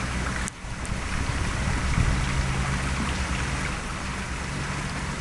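Steady outdoor wind noise buffeting the camera microphone, a low rumble under a broad hiss, with a brief dropout about half a second in.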